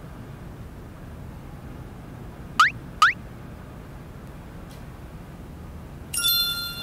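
Quiet room tone broken about two and a half seconds in by two quick rising squeaks close together. Near the end a music cue starts with ringing, bell-like tones.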